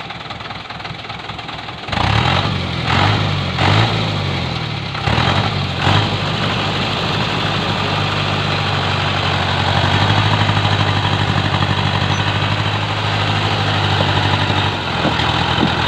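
A small truck's engine working up a steep hill: quieter at first, it rises sharply about two seconds in and revs up and down several times, then runs at a steady, held pitch under heavy load.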